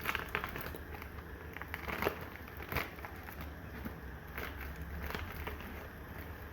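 Cooking at the pot: irregular clicks and knocks, as of a spoon stirring against the pot, over a low steady hum.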